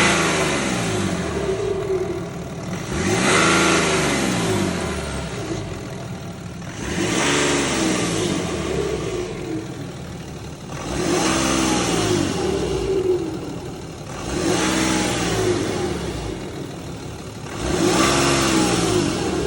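BMW M57 straight-six diesel engine blipped about six times, one every three to four seconds, each time rising in pitch and falling back toward idle. The owner hears an unexplained noise as the revs drop.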